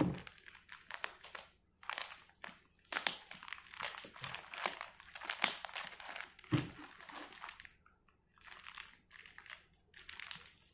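Plastic wrapping crinkling as it is handled and pulled open by hand, in irregular crackles with a short pause about eight seconds in.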